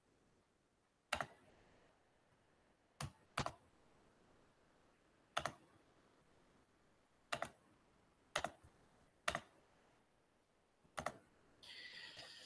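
Isolated clicks of a computer keyboard, about eight single clicks spaced a second or two apart, with near silence between them.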